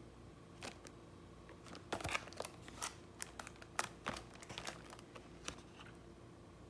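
Paperboard sleeve of a prepared-meal package handled and turned over in the hands: faint scattered rustles, taps and crinkles, busiest between about two and five seconds in.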